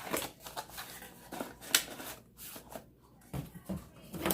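Handling noise from a plastic power strip surge protector and its packaging: scattered light clicks and rustles, with one sharper click near the middle.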